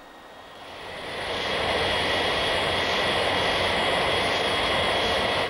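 Jet airliner engines, swelling up over the first second or so and then holding steady with a high-pitched whine over the roar; the sound cuts off abruptly at the end.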